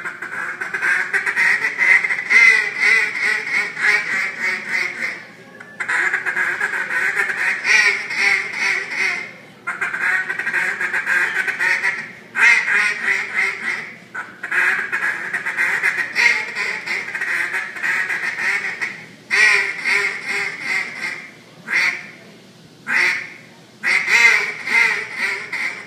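Mallard duck call blown in a calling-contest routine: long strings of rapid quacks in phrases of a few seconds each, broken by short pauses for breath, with shorter bursts toward the end.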